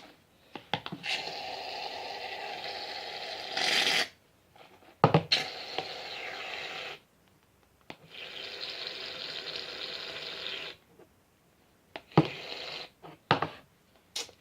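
Aerosol can of shaving cream spraying in three long, steady hisses, with a few sharp knocks from handling between them.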